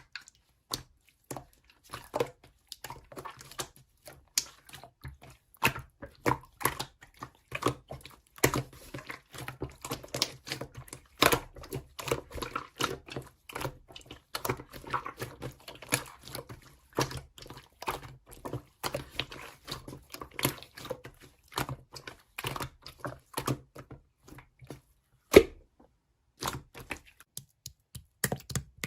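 Slime being pressed and squished by hand, making irregular sticky clicks and pops, a few a second, with one louder pop near the end.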